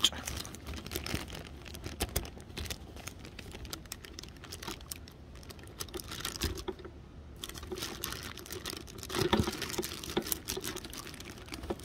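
Hands working a small plastic clip off a new watering can's packaging: a run of irregular small plastic clicks and ticks with some crinkling of plastic wrapping.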